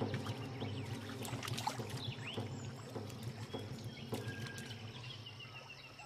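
Water splashing and churning irregularly as two male platypuses fight at the surface, easing off near the end.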